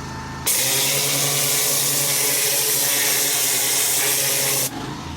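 Pressure washer spraying: the trigger opens about half a second in and the high-pressure jet hisses loudly and steadily for about four seconds, then cuts off abruptly near the end. The washer's engine hum runs underneath throughout.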